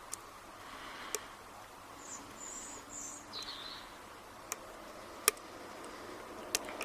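Lock pick and tension wrench clicking sharply and irregularly against the pins of an old Lockwood padlock during single-pin picking, about five clicks with the loudest a little past five seconds in; the probing sets nothing. A bird chirps briefly in the middle.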